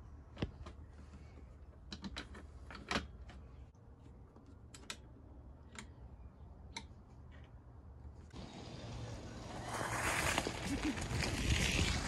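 Scattered small clicks and knocks of a bicycle saddle being set on its seat post and the clamp worked with an Allen key. About eight seconds in, a rushing outdoor noise starts and grows steadily louder.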